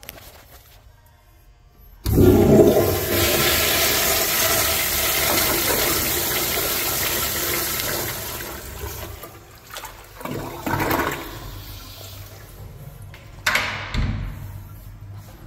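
Public-restroom toilet flushing: a sudden loud rush of water starts about two seconds in and slowly dies away over the next several seconds. A few short knocks come near the end.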